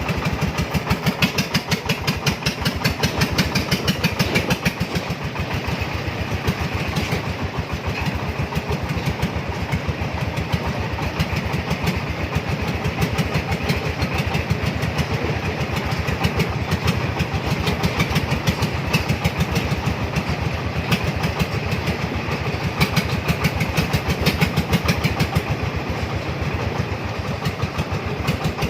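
Cargo three-wheeler's engine running steadily, with a rapid, even beat of firing pulses.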